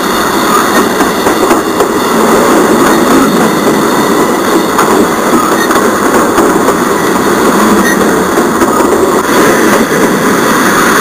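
Model freight train rolling past close by: steady rolling noise of its metal wheels on the track, with no break until the last cars go by.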